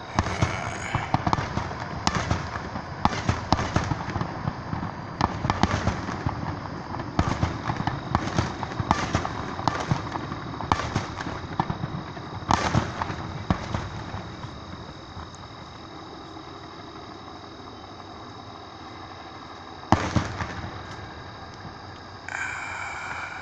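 Fireworks bursting overhead: a dense run of bangs and crackles for the first fourteen seconds or so, then fewer, with one sharp loud bang about twenty seconds in.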